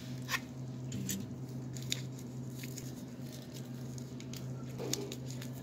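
Faint scattered clicks and light rustling from handling a foam takeout box and its plastic wrapping, over a steady low hum.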